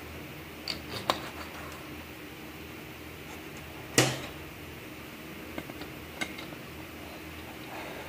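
Metal transmission parts clinking and clicking as clutch-pack components of a Nissan RE4R01A automatic transmission are fitted into its aluminium case, with one loud knock about four seconds in as a part is set down or seated. A steady hum runs underneath.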